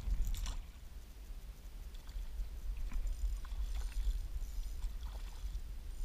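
Wind rumbling on the microphone, with several short splashes from a hooked pickerel thrashing at the surface; the loudest comes in the first half-second.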